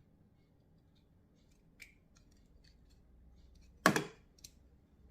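One sharp snip of a hand cutting tool about four seconds in, followed by a fainter click; otherwise faint room tone.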